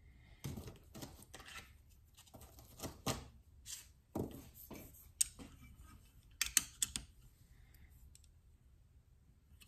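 Scattered light clicks, taps and rustles of diamond stones and their holder being handled on a KME guided knife sharpener while changing from the 300-grit to the 600-grit stone. The sharpest clicks come in a cluster between about five and seven seconds in.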